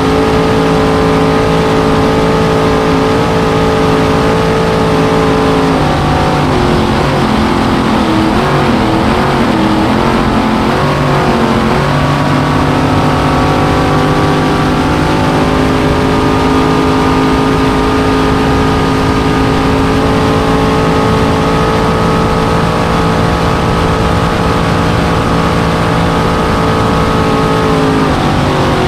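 Supercharged, fuel-injected 427 Chevy big-block V8 of a V-drive circle race boat running hard near full throttle, over a rush of wind and spray. About six seconds in the engine note drops and wavers for several seconds, as the driver eases through a turn, then settles back to a steady high pitch, with another short dip near the end.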